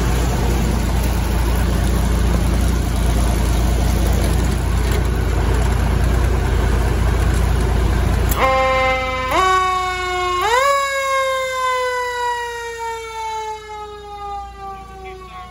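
A 1959 Seagrave fire engine's engine running with a steady low rumble, then, about eight seconds in, its Federal Q mechanical siren is spun up in three quick steps and left to wind down in a long, slowly falling wail.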